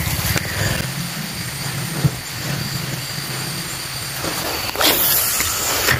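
Ryobi Zeus HP 2000 spinning reel being cranked steadily, a low whirring rumble as line is wound in. A brief rush of noise about five seconds in.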